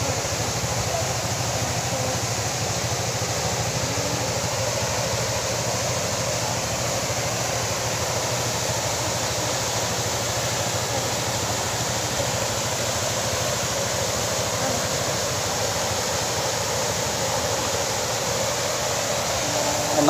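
Water pouring over a small concrete weir into a shallow, rocky stream: a steady rush of falling water.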